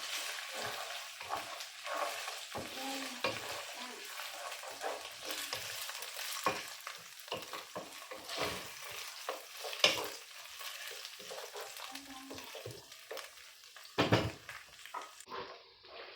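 Boiled beef and onions sizzling as they fry in oil in a pan, with a utensil scraping and knocking against the pan as the meat is stirred. The sizzle drops away near the end.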